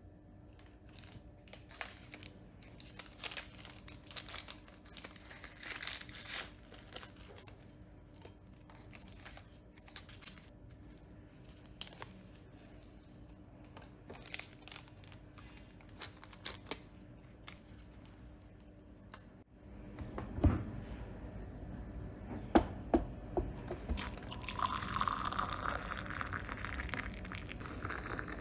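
Tea-bag sachets torn open and crinkled by hand, with a run of small crackles and rustles as the tea bags go into ceramic mugs. A few sharp knocks follow, then water is poured into the mugs near the end, a steady hiss.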